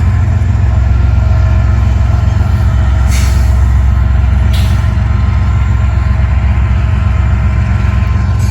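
Diesel locomotives of a loaded Union Pacific rock train running with a loud, steady low drone as the train pulls away. Two short bursts of air hiss come about three and four and a half seconds in.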